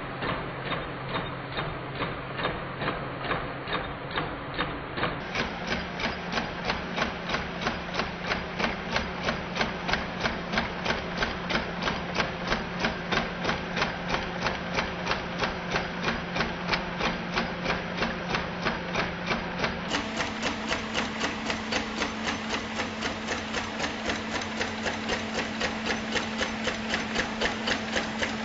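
Homemade magnet-linked crankshaft and flywheel machine, driven by a small battery-powered electric motor, running with an even mechanical knocking, about three knocks a second, over a low hum that steps up in pitch twice.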